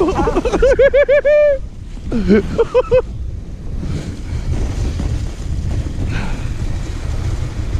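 A voice gives a quick string of short, pitched cries in the first seconds. After that comes the steady rush of wind on the microphone and the rumble of a sled running down packed snow.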